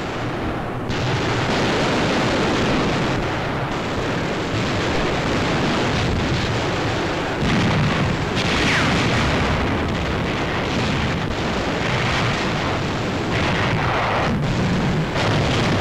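Heavy artillery guns firing in a barrage, the blasts running together into a dense, continuous din with no single shot standing apart, a little louder from about eight seconds in.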